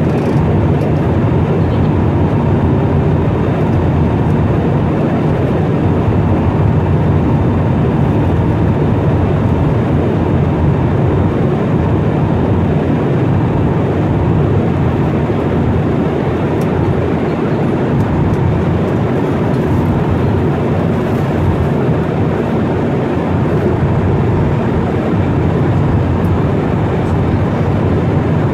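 Steady cabin noise of a jet airliner in flight, heard inside the cabin beside the wing engine: a constant low rumble of engine and rushing air.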